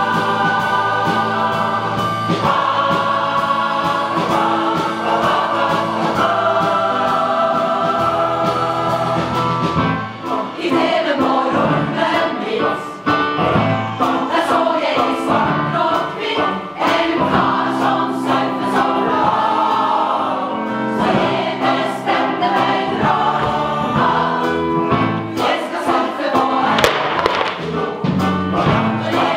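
Mixed choir of men and women singing. Long held chords for about the first ten seconds, then a quicker, choppier rhythmic passage.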